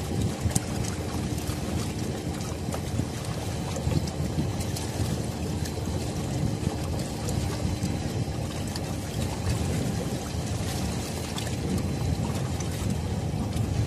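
Rough water lapping and splashing at the shore, with wind buffeting the microphone; a faint steady hum joins from about five to nine seconds in.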